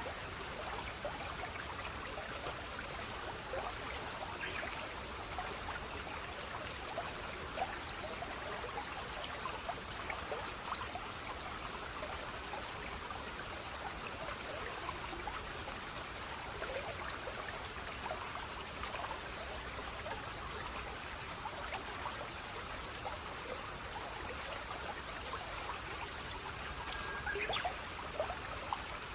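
Stream water flowing and trickling steadily, with many small splashes and drips through the babble.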